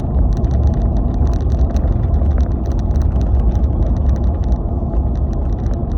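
Low steady rumble of a moving vehicle, with many quick sharp clicks or rattles over it, several a second.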